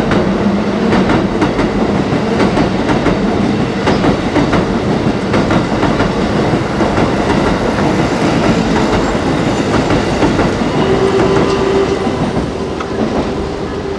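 Train passing on elevated tracks directly overhead, with a loud, continuous rattle and clatter of wheels and cars and a steady droning tone that strengthens near the end. It cuts in and cuts off suddenly.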